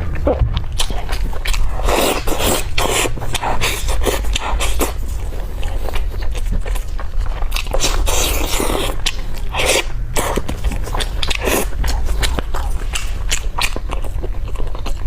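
Eating sounds of someone gnawing meat off a pork leg bone: biting, chewing and wet smacking, with many irregular clicks.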